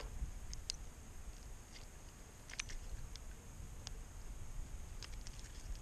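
Quiet handling noise as a small bass is held at the waterline and unhooked: a few faint, short clicks and ticks, scattered irregularly, over a low steady rumble.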